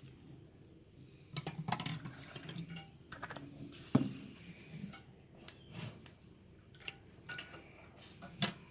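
Cups and kitchen utensils being handled, clinking and knocking lightly, with one sharper knock about four seconds in.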